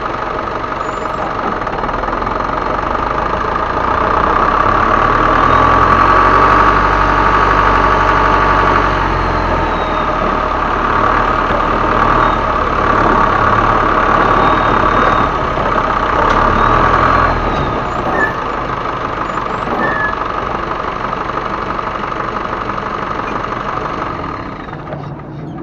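Turbocharged diesel engine of an Isuzu Elf HD truck running, rising from idle to held higher revs from about four seconds in, with the turbo whistling. It drops back toward idle about seventeen seconds in.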